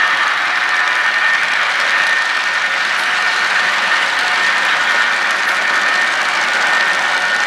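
Empty model-railroad coal hopper cars rolling past on metal track: a steady clatter of small metal wheels on the rails, with a faint high squeal.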